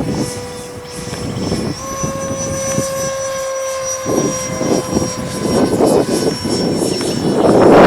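E-flite Viper 64mm electric ducted-fan jet flying overhead: a steady fan whine that steps up slightly in pitch about two seconds in. Rough bursts of wind noise come and go over it.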